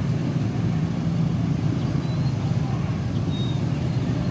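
Steady low rumble of running engines, from motorcycles idling at a railway level crossing and a diesel-hauled train, with a couple of faint short high chirps.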